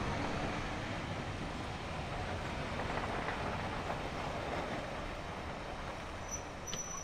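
Steam-hauled train rolling along the rails as it passes, a steady rumble that slowly fades. A few short high chirps come in near the end.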